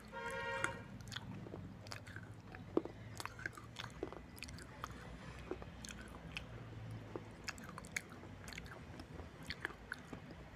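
Close-up biting and chewing of baked red clay pot pieces coated in wet red clay paste, with scattered sharp crunches and clicks. A brief pitched sound rises over it in the first second.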